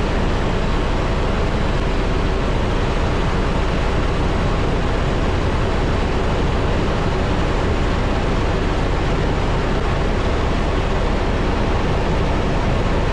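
Airbus H125 single-engine helicopter in cruise flight, heard inside the cabin: a steady, even rush of turbine, rotor and airflow noise with a deep low rumble, unchanging throughout.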